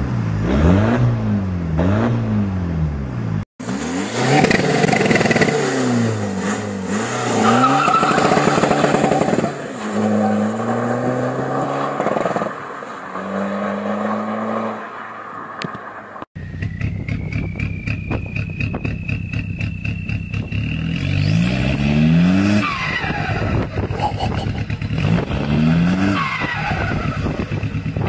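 Straight-piped Volkswagen TDI diesel engines revving hard, again and again. The note rises and falls repeatedly across three clips joined by abrupt cuts. In the last part a high whistle climbs over the engine.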